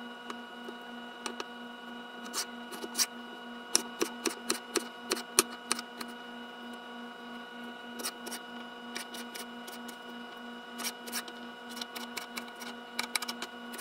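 Kitchen knife chopping a peeled potato into cubes on a wooden cutting board: irregular sharp taps of the blade on the board, coming in quick runs with short pauses, over a faint steady hum.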